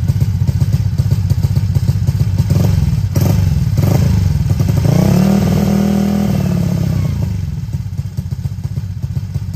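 A Yamaha Fazzio scooter's single-cylinder engine, bored out to 150cc and fitted with an aftermarket exhaust, running at idle with a loud pulsing beat. About five seconds in it is blipped once, and the pitch climbs and falls back to idle within a couple of seconds. A few knocks are heard shortly before the blip.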